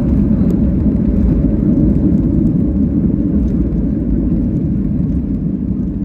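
Boeing 737 airliner on its landing roll, heard from inside the cabin: a loud, steady rumble of engines and wheels on the runway, easing slightly as the aircraft slows with its spoilers raised.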